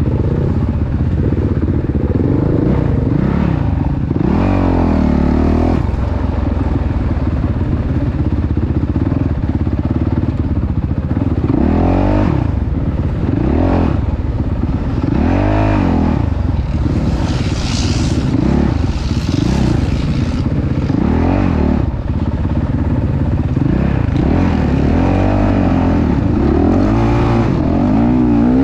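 Off-road motorcycle engine running under load, its pitch rising and falling every second or two as the throttle is opened and closed, with clattering over rough ground.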